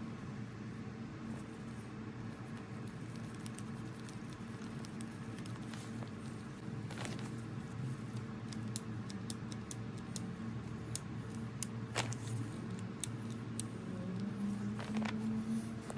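Light metal clicks and taps from handling the lathe's cast-iron carriage assembly, its handwheel and crank handles, scattered at first and more frequent in the second half, with one sharper click about three-quarters of the way through. A steady low hum continues underneath.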